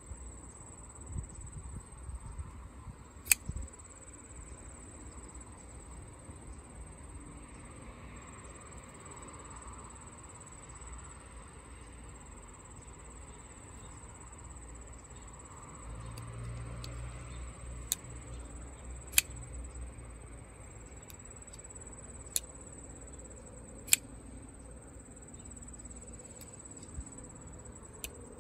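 A steady high-pitched chorus of insects, with about six sharp, separate metallic clicks from a Spartan Harsey folding knife as its Damascus blade is snapped open and closed.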